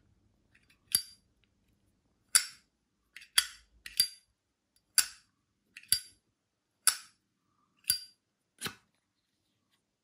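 Zippo 29828 Wood Mandala Toffee lighter's hinged lid being flipped open and snapped shut over and over, making the brass windproof lighter's metallic clink. There are nine sharp clicks, each ringing briefly, about one a second.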